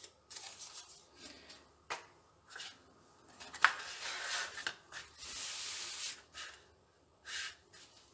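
Folded card stock being handled, opened out and smoothed flat on a cutting mat: paper rustling and rubbing, with two sharp clicks about two and three and a half seconds in and a longer rub about five seconds in.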